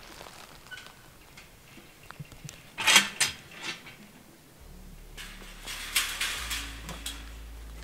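Metal clanks and rattles of a rusty steel farm gate being handled and opened, with a loud cluster of sharp clangs about three seconds in and more rattling near the end. Soft background music comes in about halfway.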